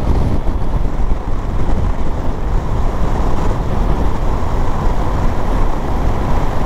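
Steady wind and road noise from riding a BMW motorcycle, rushing over the microphone.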